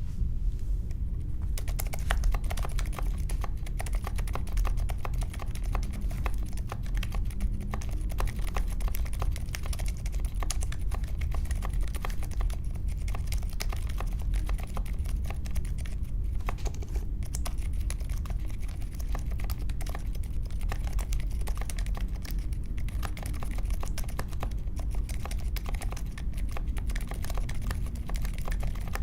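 Mechanical keyboard typed on in quick, continuous keystrokes that start about a second and a half in, over a steady low hum. The keys use unlubed Akko CS Vintage White linear switches, and the board has an aluminium case, a foam mod, a tape mod and clipped stabilizers.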